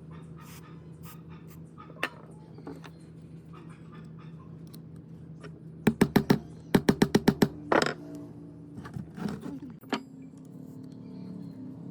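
Workshop noise: a steady low hum with scattered clicks, and a quick run of about ten sharp knocks, several a second, a little past the middle.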